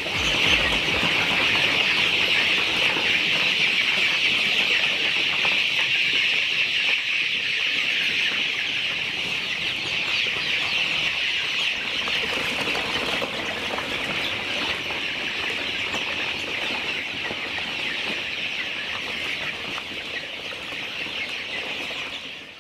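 A large flock of chickens clucking and calling together: a dense, steady chatter that fades out near the end.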